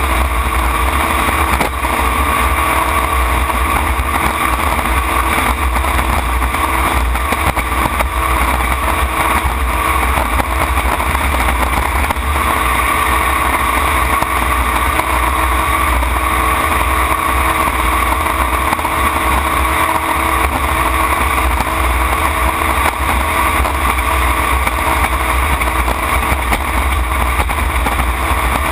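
A tunnel-hull racing jet boat's engine running steadily at high power, heard from the open cockpit over a constant rush of wind and water.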